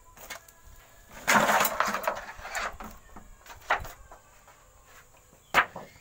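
Handling noise: a loud rustling, scraping burst starting about a second in and lasting about a second and a half, then a few sharp knocks, the loudest near the end.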